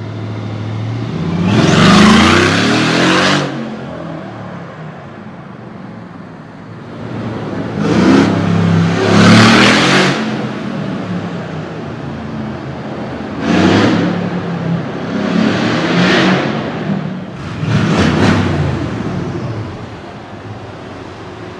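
Loud Mercedes-AMG G-Wagon engines accelerating hard, in several bursts a few seconds long with the engine note climbing each time, over a steady engine and traffic background.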